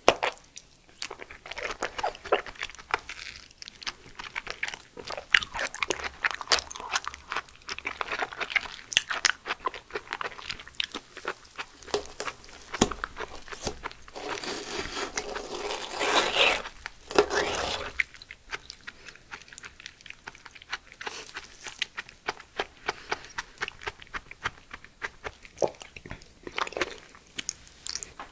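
Close-miked eating of raw aloe vera gel: a metal spoon scraping the slippery gel off the leaf, and wet slurping and chewing with many sharp mouth clicks. There is a longer, louder stretch of noise around the middle.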